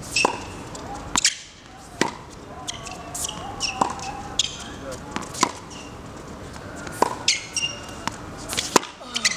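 Tennis balls struck by racquets and bouncing on a hard court during groundstroke play: a string of sharp pops, each with a short high ring, about one every half second to second.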